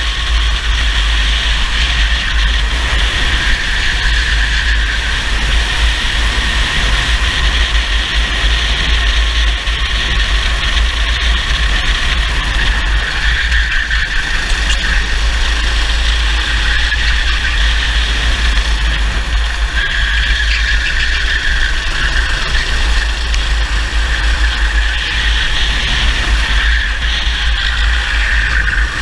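Racing kart engine running hard at high revs, heard onboard, its pitch shifting up and down as the kart goes through corners and straights, over a heavy constant low rumble of wind and vibration on the microphone.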